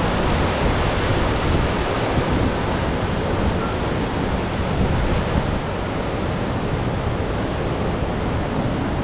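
Hurricane-force wind blowing hard and steadily, loud and buffeting the microphone with a heavy low rumble.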